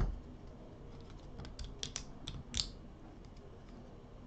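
Small steel bracket and clip parts clicking and tapping against each other as they are fitted together by hand: a sharp click at the start, then a quick run of light clicks about halfway through, the last one the loudest.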